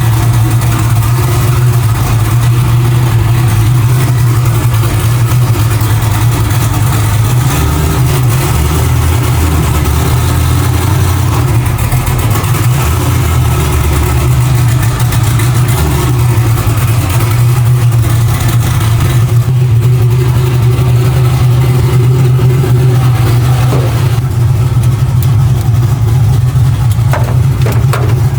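Chevrolet Nova's engine running loudly and steadily just after being started from sitting, its note shifting lower for a few seconds around the middle.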